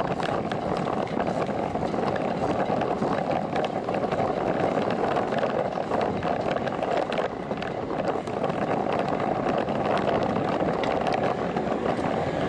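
Steady rushing noise of a road bicycle rolling on paved town streets, tyre and wind noise over the microphone, with scattered small clicks and rattles.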